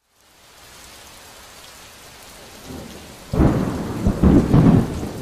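Thunderstorm: a steady rain hiss fades in, then loud rumbling thunder breaks in a little past the middle and keeps rolling.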